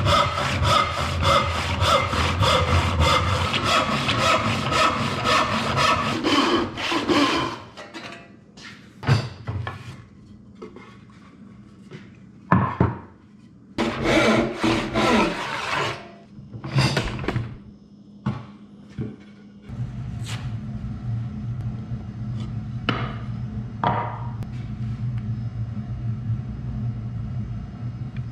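Hand saw cutting a cherry board in rapid back-and-forth strokes, then in shorter scattered strokes. About two-thirds of the way through, the sawing gives way to a steady low rumble.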